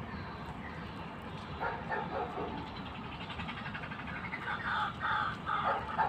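An animal calling over and over: a short run of calls about a second and a half in, then a regular string of calls, two or three a second, from about four and a half seconds in.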